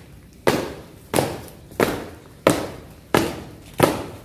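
A flag-raising troop marching in step, stamping their shoes on the paved ground in unison. There are six sharp stamps at a slow, even pace, about one every two-thirds of a second, starting about half a second in.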